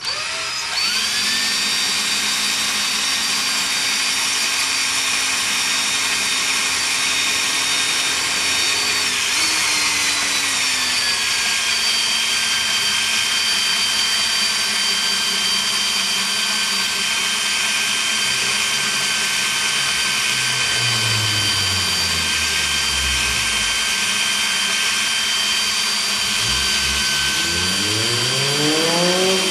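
Cordless drill spinning a brake-cylinder hone inside a corroded rear drum-brake wheel cylinder, honing out the bore. The motor starts about half a second in and runs steadily, its whine dropping in pitch about ten seconds in, with lower tones sweeping down and then up and down later on.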